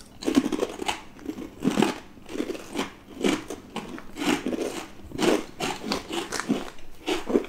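Crunchy chewing of baked 100% cheddar cheese crisps: a close, uneven run of sharp crunches, about two a second.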